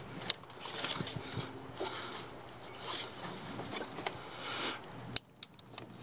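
Handling noise from a hand working among corrugated plastic wire looms and hoses at a truck's coolant temperature sensor: uneven rustling with scattered small clicks, and one sharp click about five seconds in.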